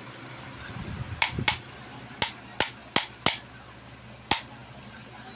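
Seven sharp knocks or taps, unevenly spaced, starting about a second in and ending about four seconds in, over a steady low hum.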